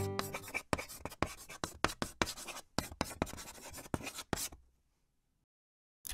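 Scratchy pen-on-paper writing strokes, a quick irregular run of scratches and clicks that stops about four and a half seconds in, as the last of a strummed acoustic guitar dies away at the start.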